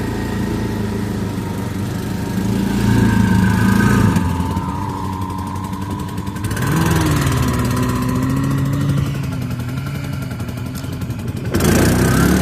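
ATV engine working on a steep hill, its revs rising and falling with the throttle. It surges louder a few seconds in, drops back, climbs in pitch again about halfway through, and picks up loudly near the end.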